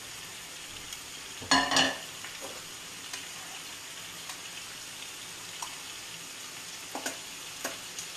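Steady hiss of food sizzling in a pan on the stove. About one and a half seconds in, a ceramic plate is set down on the stove with a loud, ringing clatter. Near the end come a few light clinks of a fork against a metal skillet as pasta is served.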